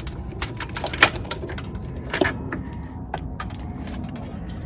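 Scattered clicks and light knocks from handling voltmeter test leads and wiring while connecting the ground lead. The sharpest click comes about a second in and another just after two seconds.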